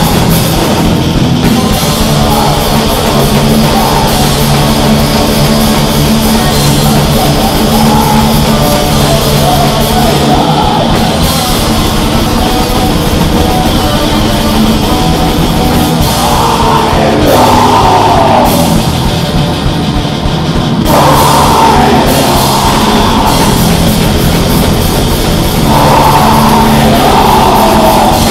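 Black metal band playing live: distorted electric guitars, bass and drums at full volume, with vocals coming in for several short phrases in the second half.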